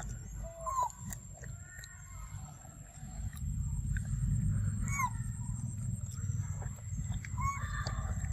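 A macaque chewing and munching fruit close by, the low munching noise getting louder about three seconds in. Three short rising chirps sound over it, and a steady high whine runs in the background.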